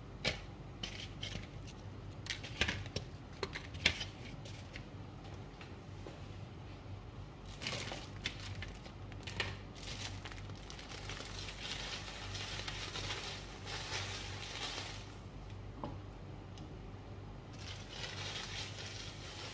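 Chicken and vegetables sizzling in a covered frying pan, with sharp pops and crackles in the first few seconds and longer spells of hissing later.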